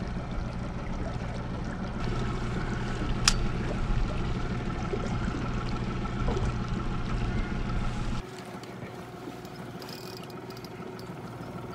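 Boat engine running steadily with a low hum, water moving against the hull, and a single sharp click about three seconds in. About eight seconds in it gives way abruptly to quieter water lapping.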